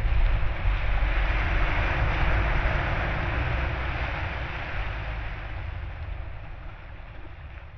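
A steady rumbling, hissing noise, strongest in the low rumble, that fades out gradually over the second half.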